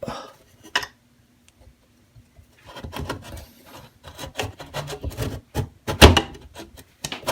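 Old bathroom exhaust fan motor assembly being pulled out of its housing: a click, then irregular scraping, rubbing and knocking of the parts against the housing, with one loud knock about six seconds in.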